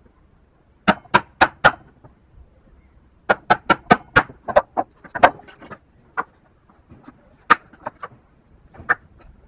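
Hammer blows on a chisel chopping into a small wooden block to cut a bridle joint: a quick run of four sharp knocks about a second in, a run of about six from about three seconds in, then single knocks spaced out toward the end.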